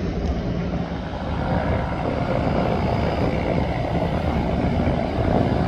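Loud, steady rumble of a large vehicle, with a faint whine on top from about a second in.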